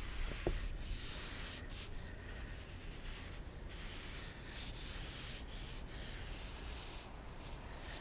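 Paint being brushed on with a 3-inch paintbrush while cutting in the second coat of deck paint, the bristles rubbing over the surface in a series of strokes.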